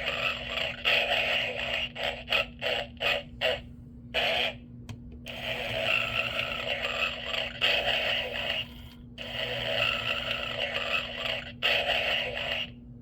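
Snoring from a Gemmy Snoring Santa animated figure: long rasping snores of a few seconds each with short breaks between them, over a faint steady hum.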